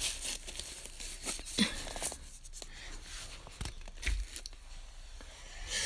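Cardboard firework boxes being handled and set down on carpet: scattered rustling with a few soft knocks.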